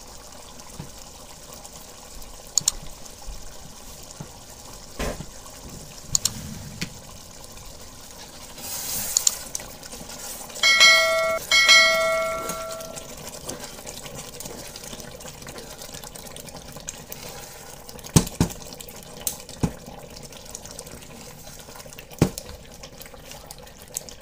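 Chicken karahi curry simmering in a pan with a steady bubbling hiss, while a spatula knocks against the pan now and then as it is stirred. About eleven seconds in, a short two-note bell-like ding rings out.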